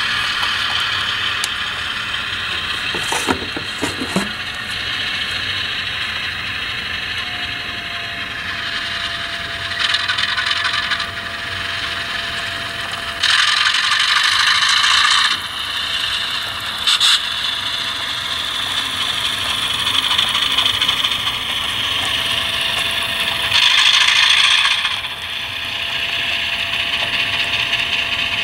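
HO-scale Alco C425 model locomotive's TCS WOW Sound diesel decoder playing a diesel engine through its small onboard speaker as the model runs, mixed with the whir of the model's motor and gears. A few clicks come about three to four seconds in, and several short bursts of hiss break in at intervals.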